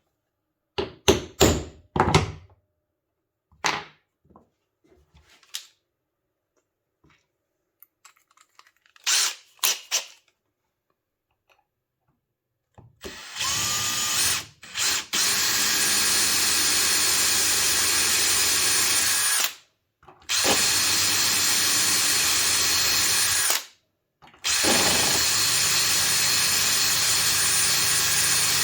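Handling clicks and knocks, then a power drill running steadily in three long stretches with brief stops between them.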